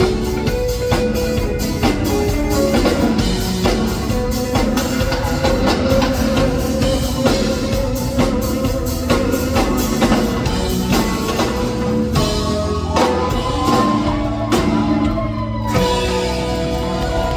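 Live rock band playing an instrumental passage with no singing: a drum kit keeps a steady beat under sustained guitar and bass notes.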